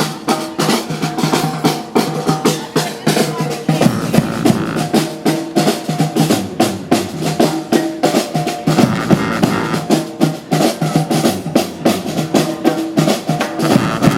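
Street band playing live: horns holding sustained melody notes over a steady, busy beat of snare and bass drum.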